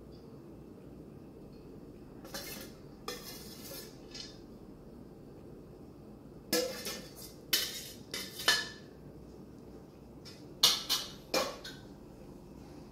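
Metal spoon clinking and scraping against a stainless steel bowl as rice is scooped out into a cooking pot, in three short clusters of clinks, the loudest a little past the middle of the last one.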